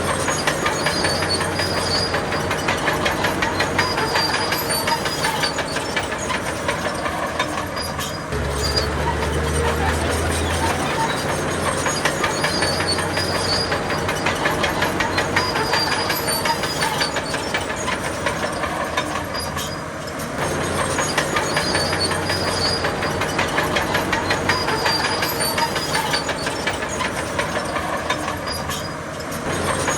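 Heavy diesel earthmoving machinery running steadily with a fast, continuous clatter, dipping briefly a few times.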